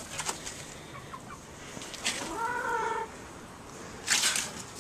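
Chickens in a coop: one drawn-out call, rising and falling, about two seconds in, then a short burst of rustling or scuffling near the end.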